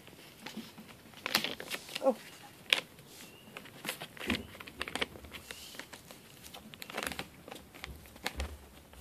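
Newspaper crinkling and rustling under schipperke puppies moving about on it, in scattered short crackles and scratches. A couple of faint, short, high squeaks come in the middle.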